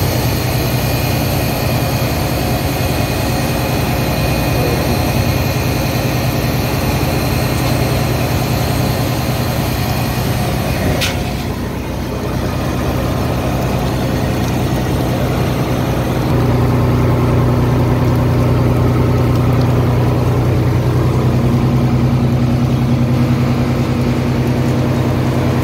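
Fishing boat's inboard engine running steadily with a low hum. There is a brief break just before halfway, and from about two-thirds through the hum is louder.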